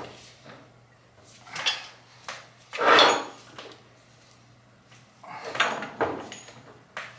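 3/4-inch metal pipe and threaded fittings scraping and clanking in a few short bursts as the joints are screwed tight, the loudest about three seconds in.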